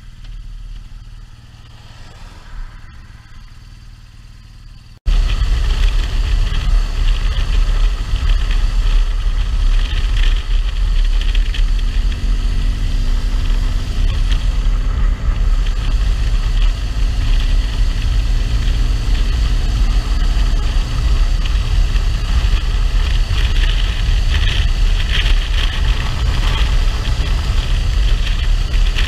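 Motorcycle ridden along a road, heard from a bike-mounted camera: engine running under heavy wind and road rush. It is fairly quiet for about five seconds, then jumps abruptly to a loud, deep rumble that stays steady, with a faint engine note rising slowly around the middle.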